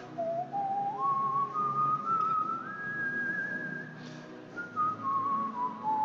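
Slow instrumental worship music. A single high, pure-toned melody line slides up in steps to a long held note with vibrato, about halfway through, then steps back down. It plays over sustained low chords.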